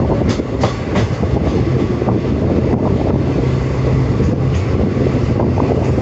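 Vasco-da-Gama–Velankanni Express passenger coach running along the track, heard from its open window. A loud, steady rumble of wheels on rail carries a low hum, with scattered sharp clicks from the wheels over the track, most of them in the first second.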